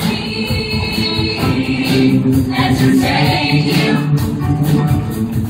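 Mixed high school show choir singing in held harmonies over a live band's accompaniment with a steady beat.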